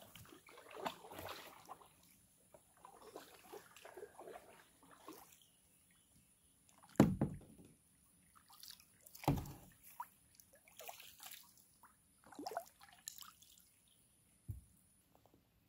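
Water sloshing and dripping around a kayak in irregular bursts, with two heavy thumps about seven and nine seconds in.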